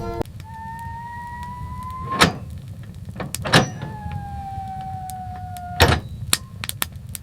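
Wolf howling: two long howls, the first rising slightly and the second falling slightly, over a steady low rumble of wind, with several sharp knocks in between.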